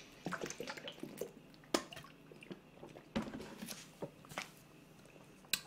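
A person gulping a drink from a plastic bottle: a quick run of wet swallowing clicks in the first second or so, then a few scattered sharp clicks and soft wet mouth sounds.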